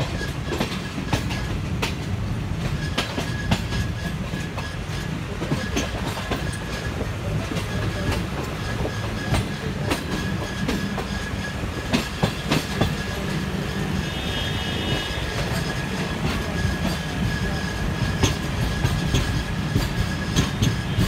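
Passenger train heard from on board while running, a steady low rumble with the clickety-clack of the wheels over rail joints and a thin, steady high whine from the wheels.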